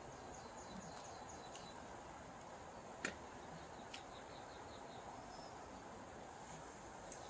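Faint steady rush of a river, with a small bird giving a quick run of high falling notes twice. Metal chopsticks tap sharply against the aluminium cooking pot about three seconds in and again a second later.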